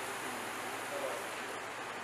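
Steady, even background hiss with no distinct event.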